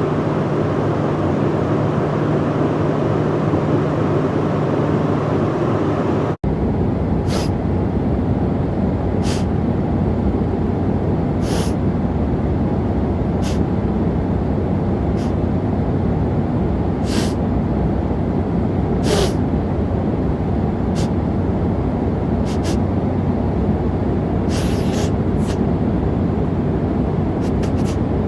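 Steady aircraft cabin drone, with a sick man sniffing through his nose in short, hissy sniffs about every two seconds, some in quick pairs. The drone briefly cuts out about six seconds in, and the sniffing starts just after.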